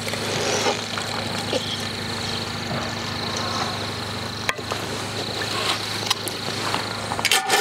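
A steady mechanical hum, like a motor running, with one sharp click about four and a half seconds in; the hum stops shortly before the end.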